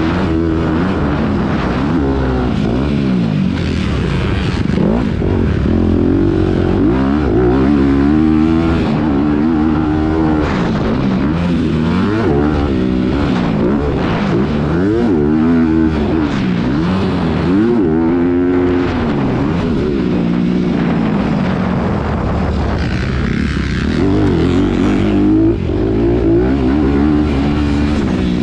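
Motocross bike engine heard from the bike itself, revving hard and dropping off over and over as the rider opens and chops the throttle around the track, with a steady low wind rumble underneath.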